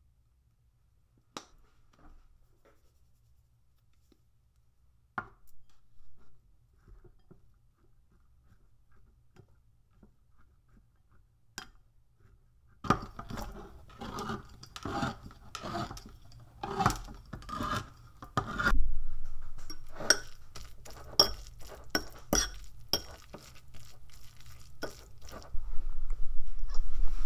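A hand-held can opener cranked around a tuna tin: a quick run of clicking and metal grinding for about six seconds. This is followed by sharper metallic clinks and scrapes against the tin.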